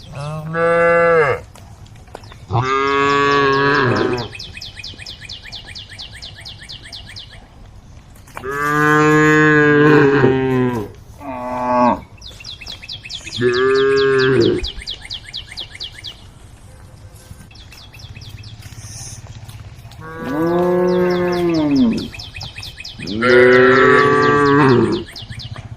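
Cows mooing: about seven long, loud moos with pauses between, each swelling up in pitch and sinking again at the end.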